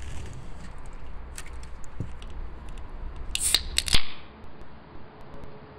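Light clicks of a Corona beer can being pulled from its pack. About three and a half seconds in, the can's pull tab cracks open with a sharp snap and a short fizzing hiss.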